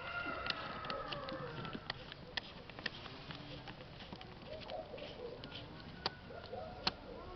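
A rooster's crow trailing off in the first second and a half, followed by scattered sharp clicks and taps, with soft bird or voice sounds near the end.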